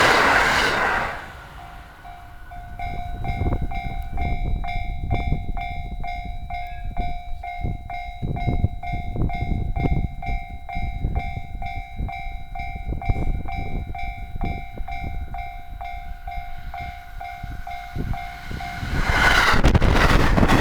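Railway level-crossing warning bell ringing in a steady pulsing rhythm while a train rumbles past, its wheels clicking over the rail joints. A loud rush of passing-train noise at the start and again near the end.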